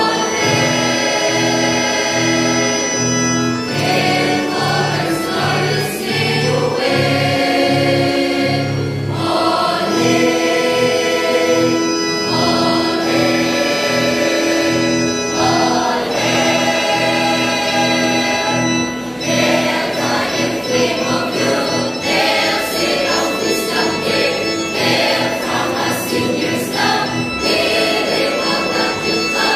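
Mixed choir of high-school students singing in long held phrases.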